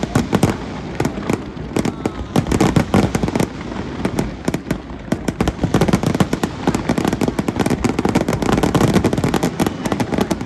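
Fireworks display going off in a dense, continuous barrage: many sharp cracks and bangs a second, overlapping, with heavier booms among them.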